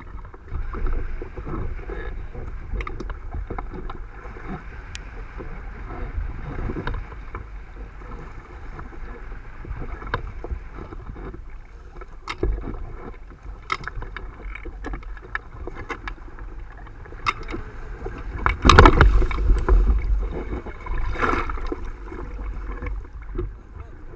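Choppy sea sloshing and slapping against the hull of a capsized Hobie Cat catamaran, with wind buffeting the microphone and scattered sharp knocks. A louder wave splash comes about three-quarters of the way through.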